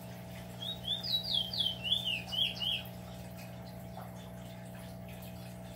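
A bird singing a quick run of about ten short, high chirps, each falling in pitch, over a steady low hum.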